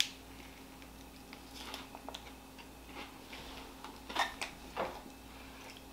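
Quiet room with faint rustles and small clicks from a candy wrapper and a napkin being handled at a table, with two sharper crackles a little after four seconds and just before five seconds in.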